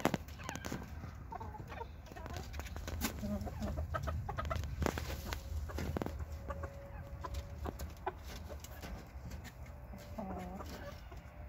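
Chickens clucking softly in a flock, short calls scattered through, with one longer held note about midway, among sharp taps and clicks, over a steady low rumble.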